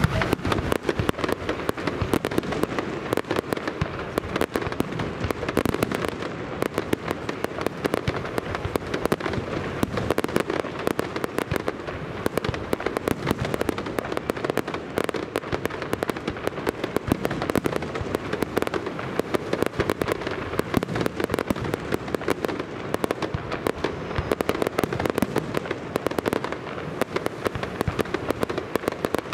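Pirotecnia López aerial fireworks display: a dense, continuous crackle of many small reports, with louder pops scattered irregularly through it.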